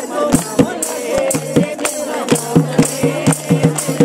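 Group of women singing a devotional bhajan in chorus, over a steady drone and a regular beat of jingling percussion and drum strokes.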